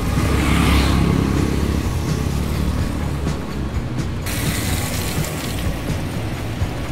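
A motor scooter running past close by in the first couple of seconds, then steady outdoor road noise.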